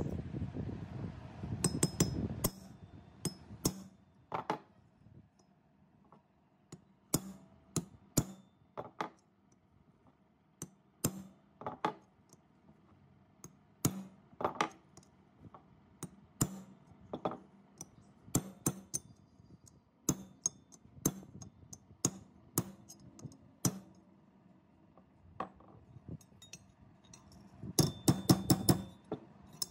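Hammer striking a rusty steel hand-saw blade laid on a steel block, beating the bent blade straight. The blows are sharp metallic clinks, one or two a second with short pauses, and a quick run of strikes comes near the end. A low rumbling noise sounds for the first couple of seconds.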